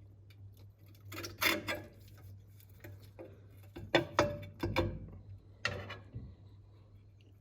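Clinks and knocks of metal tools and parts being handled during a differential cover removal, in three short clusters, over a steady low hum.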